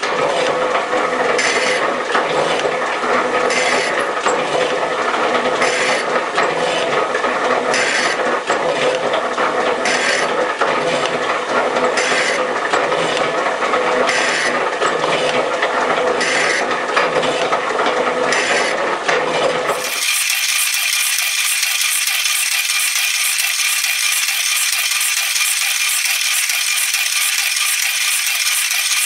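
Metal shaper running, its ram stroking back and forth about once a second as the tool planes cast iron, with mechanical clatter on each stroke. About twenty seconds in the sound changes abruptly to a steadier, thinner noise without the low end.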